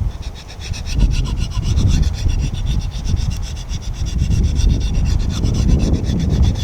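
Machete blade rasping in small circles on the diamond side of a Fallkniven DC4 whetstone, steel grinding against diamond grit in quick repeated strokes that start about a second in. A low rumble runs underneath.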